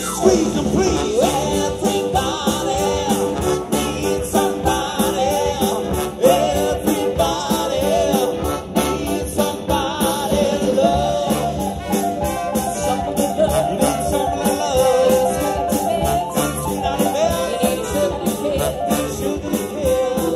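Live band playing with a singer over a steady drumbeat, electric guitar and a horn section of trumpets and trombone.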